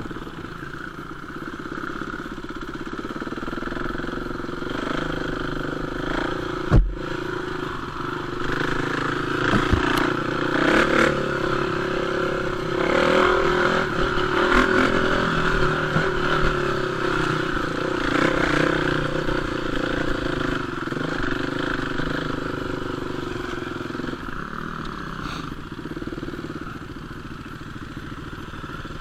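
Enduro motorcycle engine running as the bike is ridden, louder through the middle stretch, with one sharp knock about seven seconds in.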